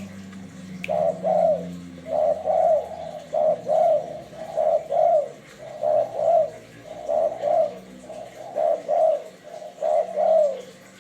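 Spotted dove (tekukur) decoy bird cooing: a steady run of phrases of two or three arched coo notes, a phrase about every second, the call used to lure wild doves.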